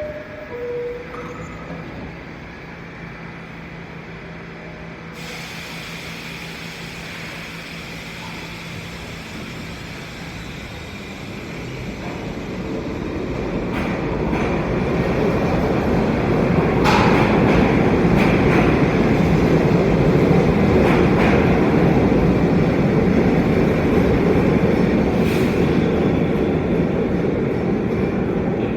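R68A New York City subway train running through the station: a rumbling rush that swells from about twelve seconds in and stays loud, with occasional sharp clicks from the wheels over rail joints.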